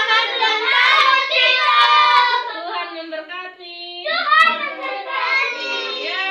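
A group of voices, children among them, singing together, with a few sharp hand claps or slaps cutting through.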